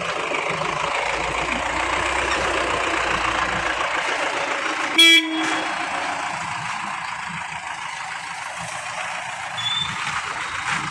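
Steady hissing background noise, with a vehicle horn tooting once, briefly and loudly, about five seconds in.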